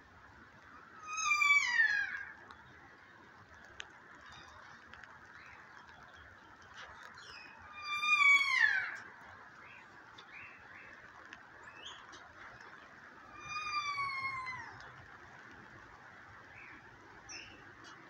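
Kākā parrot calling three times, about six seconds apart: each call is roughly a second long and falls in pitch.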